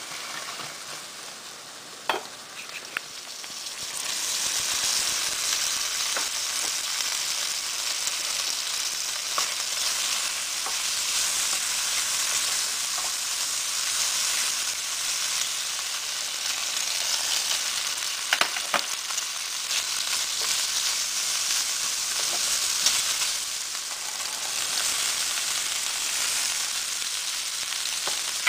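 Oil sizzling steadily in a frying pan as vegetables, turkey and egg are stir-fried for fried rice, the sizzle growing louder about four seconds in. A spatula stirs through the food, with a few sharp clicks against the pan around two and three seconds in and again past the middle.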